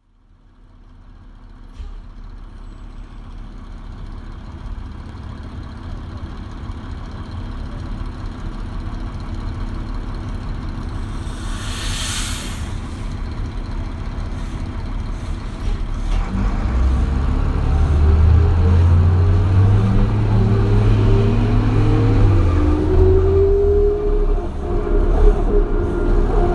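Detroit Diesel Series 40 engine of a 2001 New Flyer D40LF transit bus idling, with a brief burst of air hiss about halfway through. The bus then pulls away, the engine pitch rising in stages as the Allison automatic transmission works up through the gears.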